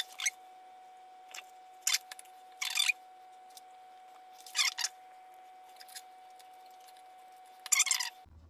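Dry spice rub rattling in a shaker bottle as it is shaken over meat: a handful of short, separate rattling bursts, the last and loudest near the end, over a faint steady hum.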